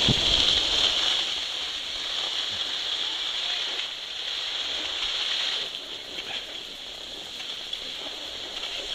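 Steady hiss of sliding over groomed snow on a ski run, dropping off after about five and a half seconds as the rider slows down.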